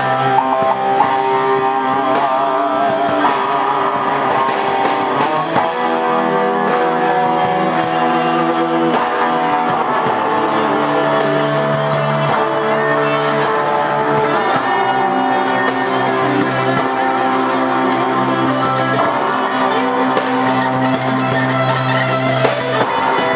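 Guitars and a drum kit playing an instrumental rock piece: a lead guitar holds notes with vibrato over chords that change every few seconds, with a steady drum beat.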